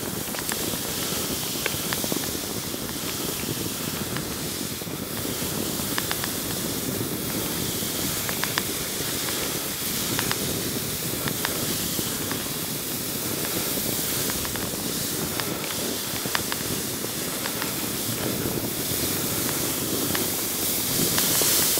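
Skis hissing steadily as they slide over snow on a ski-touring descent, with wind rushing past the microphone and a few light clicks; the hiss grows a little near the end.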